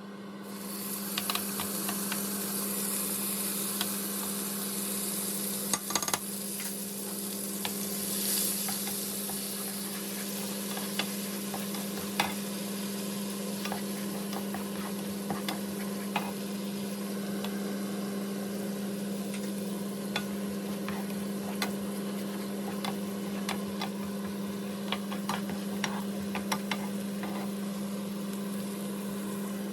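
Food sizzling in hot oil in a pan, stirred with a utensil that clicks and scrapes against the pan now and then. A steady low hum runs underneath.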